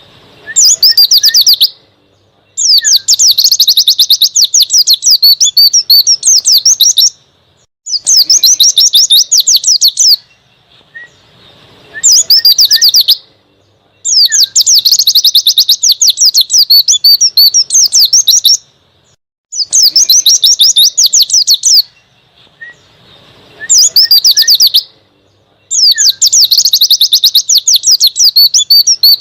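White-eye (pleci) singing its wild-style 'ngalas' song: loud, fast, high twittering phrases of one to five seconds each, broken by short pauses of about a second, about eight phrases in all.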